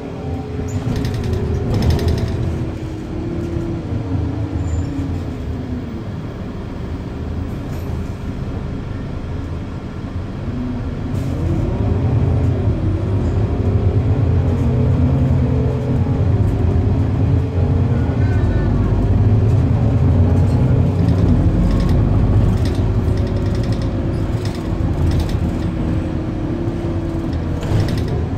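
Irisbus Citelis 12 city bus under way, heard from inside the passenger cabin: a steady low engine drone with a whine that rises and falls as the bus speeds up and slows. It gets louder about a third of the way in as the bus accelerates.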